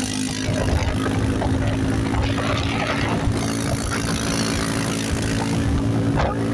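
Engine of a vehicle running steadily at high speed, its pitch held level, under a continuous rushing noise of wind and tyres.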